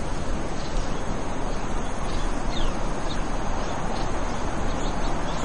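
Steady outdoor background hiss with a few faint bird chirps, about halfway through.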